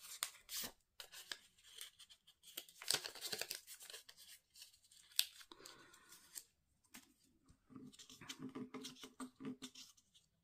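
Small paper slips being folded and creased by hand: irregular crisp crackling and rustling of paper, with a short quieter gap before the last few seconds.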